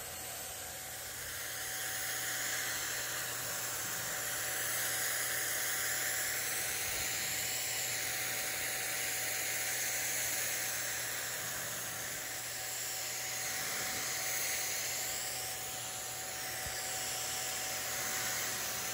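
Wagner Flexio 5000 HVLP paint sprayer running and spraying paint: a steady hiss of air and spray over a constant motor tone, rising and falling slightly in level.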